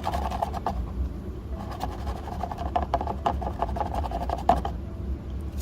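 Rusty pocket knife being handled in a vinegar bath, making a run of small irregular clicks and knocks over a steady low hum.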